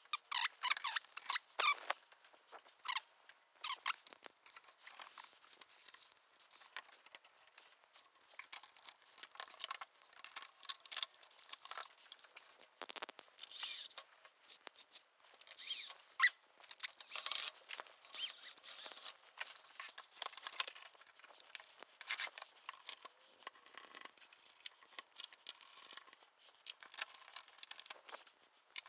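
Scattered faint clicks, scrapes and rustles of a Casio CZ-1 synthesizer's casing and panels being handled and fitted back together.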